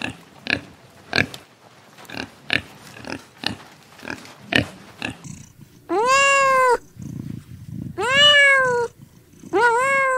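A domestic pig gives a run of short grunts, about two a second, as it roots in soil. After a cut, a kitten meows three times, each a long call that rises and then falls in pitch.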